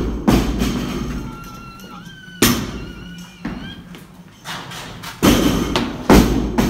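Loaded barbells with rubber bumper plates dropped onto the gym floor and lifting platforms: about four heavy thuds, a second or two apart.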